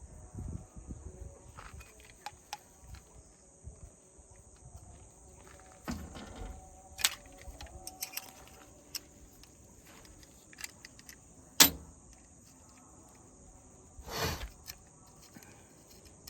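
A steady high-pitched insect chorus, with scattered clicks and knocks from hand tools being handled as a rivet gun is set up. The loudest is a single sharp click about two-thirds of the way through.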